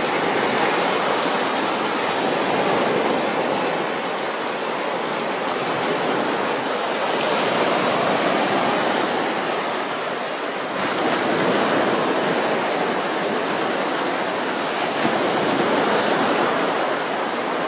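Small waves breaking and washing up on a sandy beach, the surf swelling and easing every few seconds.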